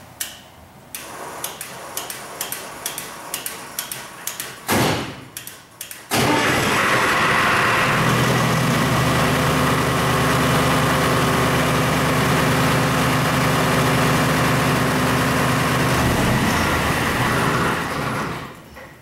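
MEP-004A military diesel generator's four-cylinder diesel engine being started: a few seconds of rapid ticking, a brief burst of cranking, then the engine catches about six seconds in. It runs steadily on all four cylinders at a low speed, then is shut down and winds to a stop near the end.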